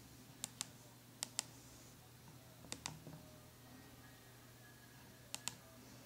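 Keys of a TK618 air mouse remote's mini keyboard being pressed: faint, quick clicks coming in pairs, four times over a few seconds.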